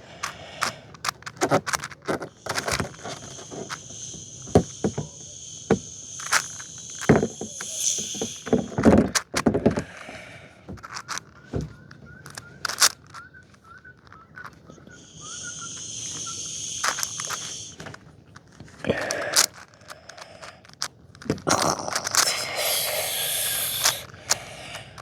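6x6 Rubik's cube being turned by hand: a stream of irregular plastic clicks as its layers snap into place, with stretches of scraping swish during runs of quick turns.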